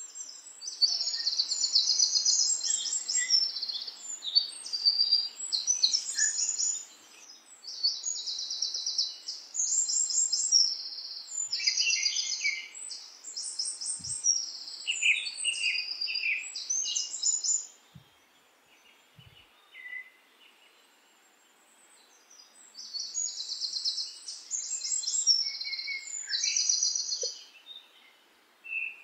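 Small songbirds singing in rapid, high-pitched trills and chirps, with a few seconds' pause about two-thirds of the way through before the song resumes.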